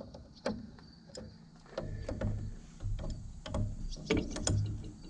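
Wrench working at a line fitting on an old roller: irregular metal clicks and ratcheting, with a few heavier low knocks in the second half.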